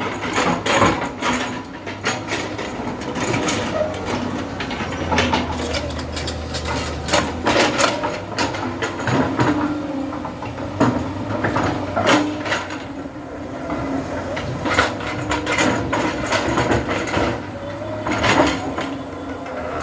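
Heavy machinery working: a low engine hum under frequent, irregular clanks and knocks.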